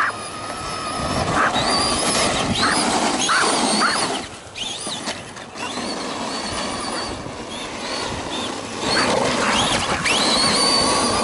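Whine of small electric motors, its pitch rising and falling again and again over a steady rushing noise: an RC monster truck being driven hard on dirt.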